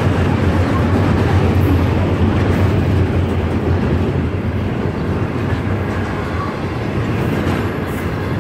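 Double-stack container well cars rolling past: a steady rumble of steel wheels on the rails. The deepest part of the rumble eases about halfway through.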